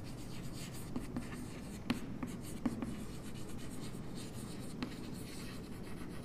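Chalk scratching across a blackboard as words are written by hand, with a few sharp taps of the chalk against the board.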